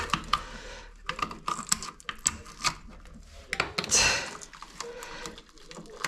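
Irregular small clicks and rattles of hands and a screwdriver working at a washing machine's plastic drain pump housing and rubber drain hose while a clog is cleared, with a brief scraping rustle about four seconds in.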